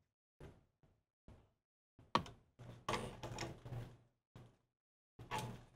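Scattered light clicks and knocks of an adjustable wrench and a brass compression fitting being handled and tightened on sprinkler valve trim, with one sharper click a little past two seconds in.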